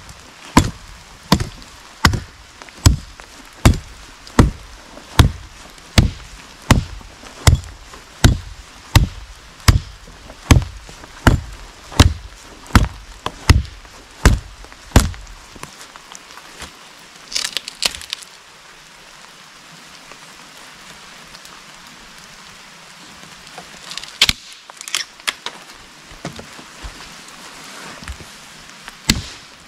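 Small hatchet chopping a fallen branch on the forest floor: about twenty steady blows, a little over one a second, for the first half. A brief crackle of wood comes a couple of seconds after the chopping stops, and a few sharp cracks follow later. Rain hisses steadily underneath.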